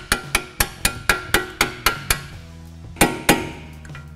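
Hammer striking a flat punch to drive splined strut bolts out of a car's steering knuckle: quick metal-on-metal blows about four a second, a short pause, then two more blows.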